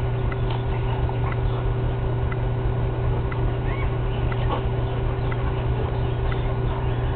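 A steady low hum with faint ticks about once a second, and one short chirp a little past the middle.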